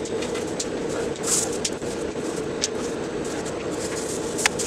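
Stainless-steel turnings rustling and parts clinking as a hand digs through the lathe's chip tray to find finished pieces, with a sharp metallic click near the end. Underneath runs a steady machine hum.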